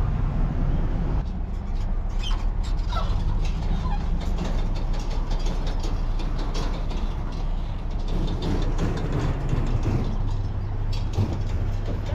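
Steady low rumble of a vehicle engine idling, with a few short high chirps about two to three seconds in.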